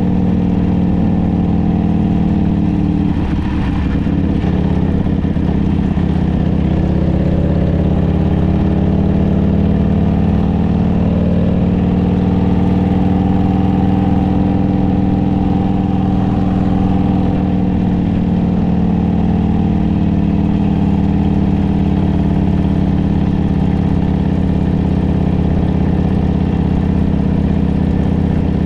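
Harley-Davidson trike's V-twin engine running steadily on the road, its pitch wavering briefly about three to six seconds in.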